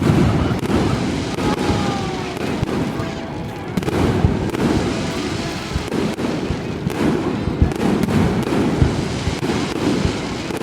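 Aerial fireworks going off in quick succession: overlapping booms and crackling bursts with no break.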